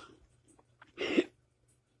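Burping: the tail of one burp fades at the start, then one short, loud burp comes about a second in.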